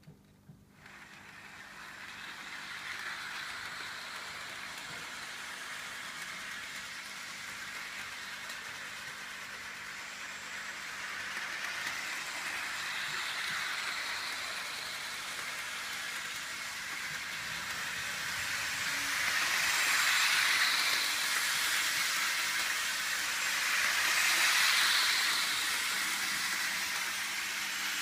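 Hornby OO gauge 0-4-0ST model tank locomotive running around the track with its wagons: a steady whirring hiss from its small electric motor and wheels on the rails. It starts about a second in, builds over the next couple of seconds, and swells louder twice near the end as the train passes closer.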